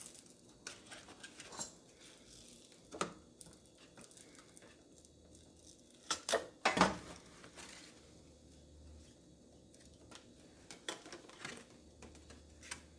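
Adhesive-backed plastic overlay being peeled off a Frigidaire range control board and handled: scattered light crackles and clicks, the loudest cluster about six to seven seconds in.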